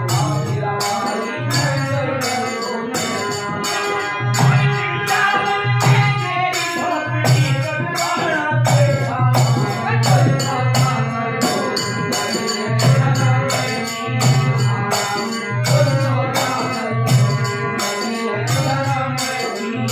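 Devotional bhajan music: men singing over a harmonium's held reed chords, a dholak drum beating a repeating pattern, and small hand cymbals (manjira) clashing about twice a second.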